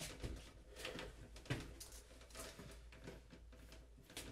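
Faint clicks and knocks of plastic drain fittings as a sink P-trap is shifted and its slip nut worked by hand, a few light taps scattered about a second apart.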